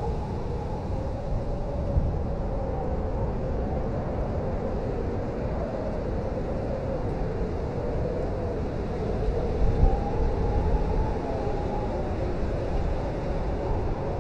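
Blizzard wind blowing steadily with a deep rumble and a howl that slowly rises and falls in pitch, swelling briefly about ten seconds in.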